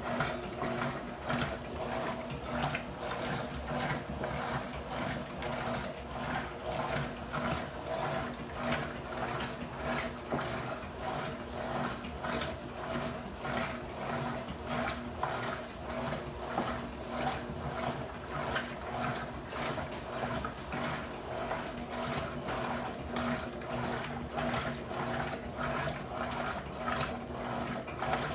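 Electrolux LT12F washing machine running: a steady hum with a regular mechanical clicking about twice a second.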